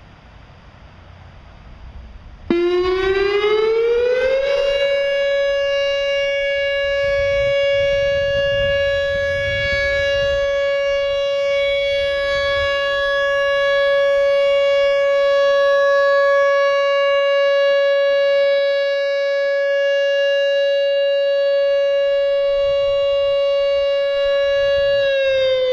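Whelen WPS-3016 electronic outdoor warning siren sounding a test. It starts suddenly about two and a half seconds in and rises in pitch for about two seconds. It then holds one loud, steady tone for about twenty seconds and starts to fall in pitch near the end.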